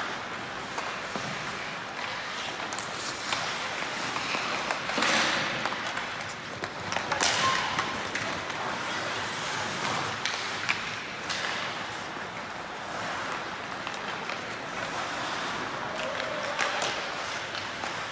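Ice hockey play on the rink: skates scraping the ice under a steady hiss, broken by scattered sharp clacks and thuds of sticks, puck and boards.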